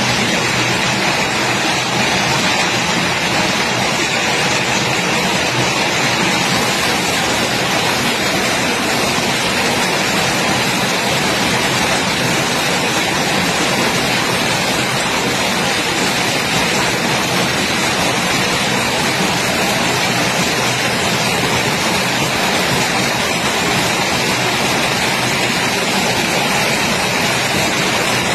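Heavy rain pouring down, a loud, steady, even hiss with no breaks.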